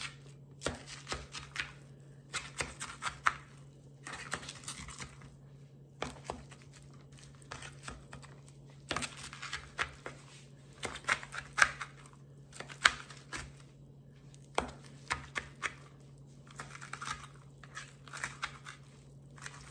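Knife and fork cutting up lettuce in a plastic salad bowl: irregular bursts of crisp crunching and scraping strokes, with clicks of the metal against the bowl. A steady low hum runs underneath.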